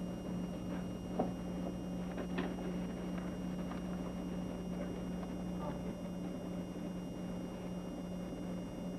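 Room tone: a steady low electrical hum with faint background noise, broken by a sharp click about a second in and a softer one about two and a half seconds in.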